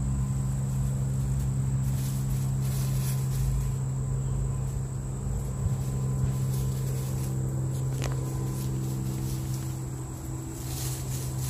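Steady low hum with faint insect chirring, and soft intermittent rustling of chickens scratching through dry leaf litter.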